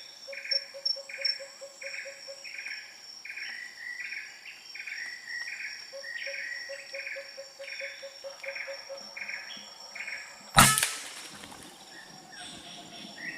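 Insects calling steadily in repeated pulses. About ten and a half seconds in comes a single sharp shot from a regulated PCP air rifle, the Semar Neo Z, fired at a perched pigeon.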